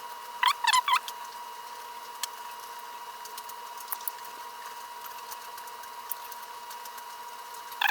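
Scattered faint clicks and taps of small parts being handled while the angle grinder's switch is worked on. A steady high whine sits behind them, and a few quick chirps come about a second in.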